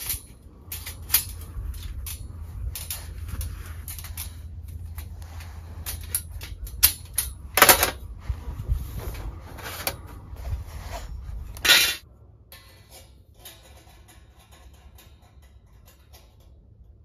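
Laser-cut steel panels of a S'more folding fire pit clinking, scraping and clanking against each other as they are unfolded and slotted together, with two louder clanks about eight and twelve seconds in. After that it goes quiet, with only a few faint knocks.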